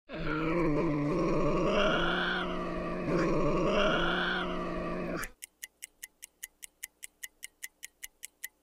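Tasmanian devil growling: a harsh, rasping call that swells and falls twice, then cuts off about five seconds in. A clock then ticks about five times a second.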